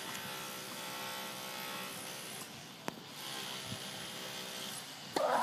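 Steady motor hum with a single sharp knock about three seconds in and a short, louder burst near the end.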